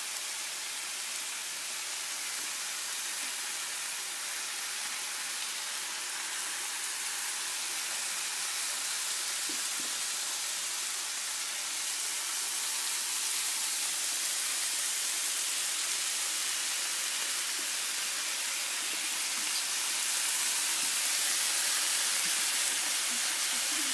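Bacon strips sizzling on a flat stovetop griddle: a steady frying hiss that grows gradually louder as more strips go onto the hot surface.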